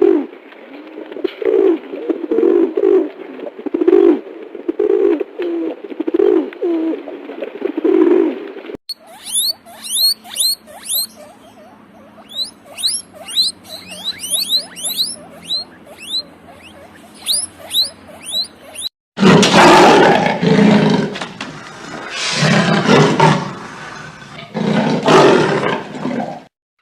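A run of three different animal sounds cut one after another. First come low calls repeating about twice a second, then many quick high-pitched chirps, then loud, drawn-out calls.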